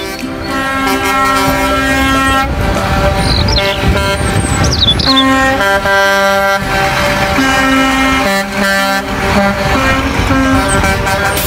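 Loud horn-like held notes that shift in pitch every second or two like a tune, with a few short falling chirps high above.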